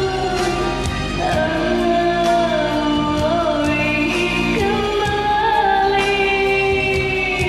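Backing music of a Malay pop ballad, played as a karaoke track, with a steady beat and long held melody notes.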